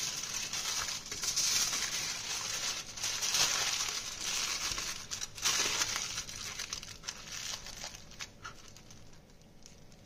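Aluminium foil crinkling and crackling as hands fold and crimp it tightly around a potato. Busiest in the first half, growing quieter toward the end.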